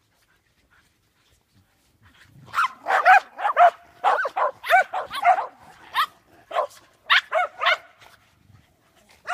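Dog barking repeatedly in quick runs of short, sharp barks, starting about two and a half seconds in and stopping shortly before the end.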